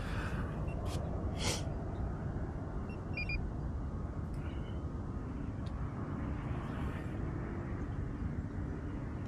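Wind buffeting the microphone: a steady low rumble, with a few small clicks near the start and a brief high double tone about three seconds in.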